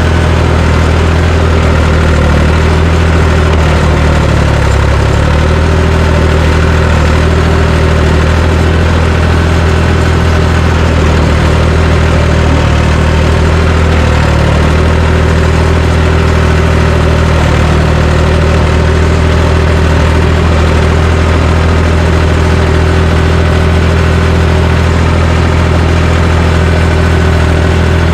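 John Deere 350 crawler dozer's engine running steadily and loud, its pitch sagging briefly twice, once about four seconds in and again about fourteen seconds in.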